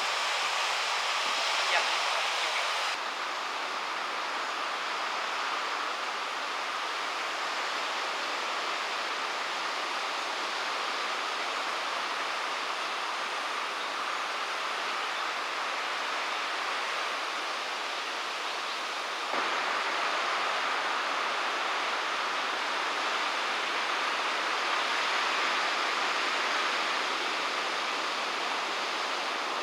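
Steady rushing noise of wind and water, like spray and surf, with no voices. It shifts abruptly about three seconds in and again about nineteen seconds in.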